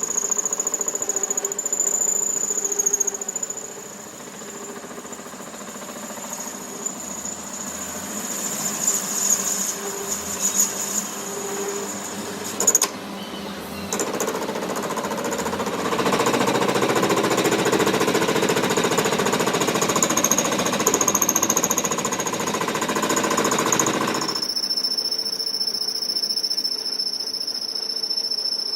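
Steady, loud rattling noise of power tools working on a crankshaft, changing abruptly twice.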